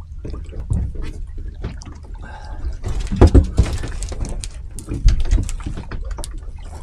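Seawater splashing and dripping as a thornback ray is lifted out of the water beside a boat, with many sharp knocks and clicks. The biggest splashes come about three seconds in and again about five seconds in.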